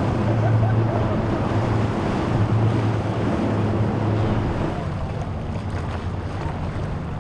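Outboard boat engine running steadily as the boat crosses choppy inlet water, over the wash of waves and wind on the microphone. The engine hum weakens about two-thirds of the way through.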